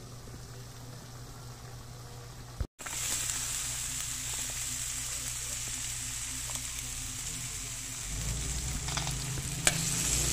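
Pork siomai simmering in liquid in a pan, making a steady sizzling hiss. After a brief cut about three seconds in, the sizzle comes back louder. A single sharp knock sounds near the end.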